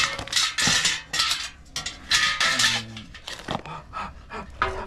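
A cooking pot and hard-shelled cooked mud crabs clattering and clinking as they are handled, in a few irregular bursts.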